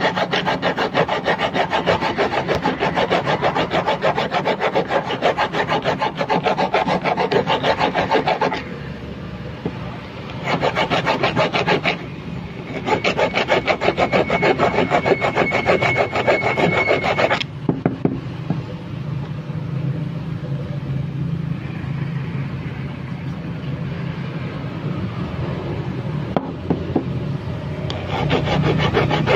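Carburetor body being rubbed in quick back-and-forth strokes along a fine flat file, a dry rasping scrape, taking the rough edges off after reaming. The filing stops briefly twice, then pauses for about ten seconds in the second half before starting again near the end.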